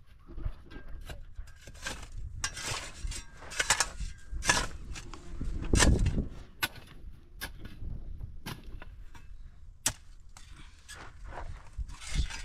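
Shovel blade scraping and striking into stony dirt as soil and gravel are dug and scooped, in irregular strokes about once a second.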